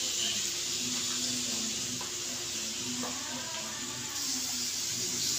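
Steady sizzling hiss from a pan of frying onions as raw chicken pieces are dropped in, a little brighter about four seconds in.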